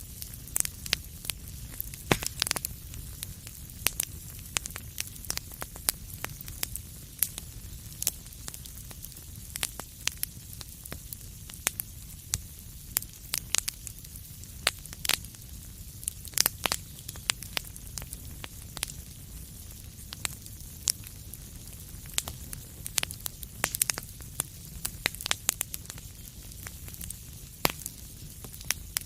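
Wood fire burning in a fireplace, with a low steady rumble of flame under frequent sharp, irregular crackles and pops.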